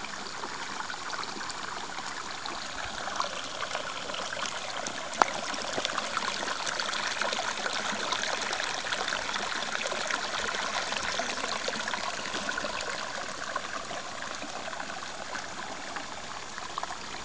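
Water pouring steadily from a plastic pipe into a shallow pool, a continuous splashing trickle that grows louder in the middle. A single sharp click about five seconds in.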